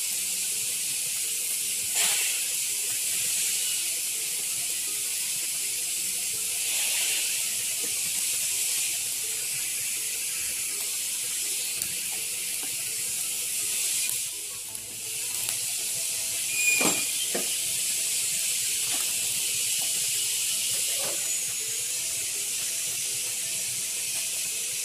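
An egg frying in a little oil in a steel ladle over a low gas flame: a steady, high sizzle, with a few light clicks along the way.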